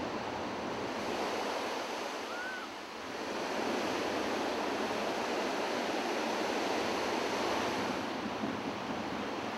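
Ocean surf: waves breaking and washing up the shore in a steady rush. It eases briefly about three seconds in, then builds again as the next wave comes in.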